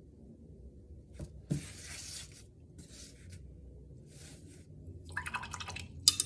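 Handling noises at a painting table: two light knocks about a second in and a few short brushing swishes. Around five seconds in comes a rasping scrape as the canvas panel is turned on its cardboard backing board, ending in a sharp clack, the loudest sound.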